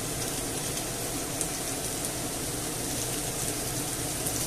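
Chopped onion, garlic and peppers sizzling steadily in olive oil in a frying pan.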